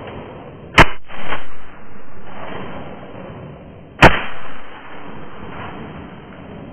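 Two shotgun shots about three seconds apart, fired at ducks flying overhead, each followed by a short echo.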